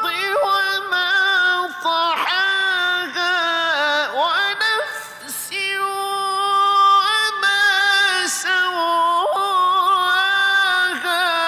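A man's voice reciting the Qur'an in the melodic, drawn-out tajweed style, holding long notes with ornamented turns and glides. There is a brief pause for breath about five seconds in.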